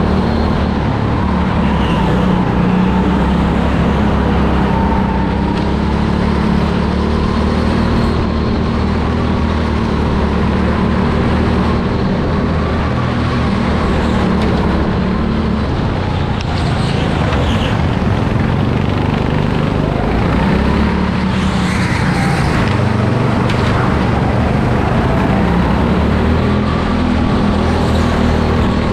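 Onboard sound of a go-kart running at speed around an indoor track. Its motor note holds steady, then dips and rises again in places through the corners.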